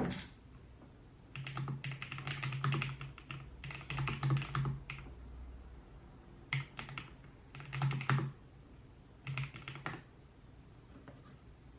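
Typing on a computer keyboard: rapid key clicks in five short bursts, with pauses between them.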